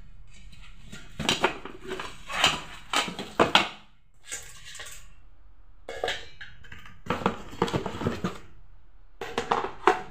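Glass cooker lid and plastic steamer tray being handled and unpacked: irregular clattering and knocking in clusters, quieter for a moment about halfway through.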